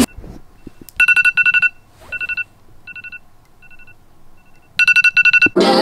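iPhone alarm going off: groups of rapid electronic beeps on one pitch, loud at first, fainter in the middle, then loud again near the end.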